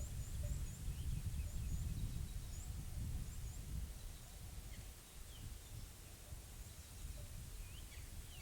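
Mountain outdoor ambience: an uneven low rumble of wind on the microphone, with small birds giving short, high chirps throughout and a few more calls near the end.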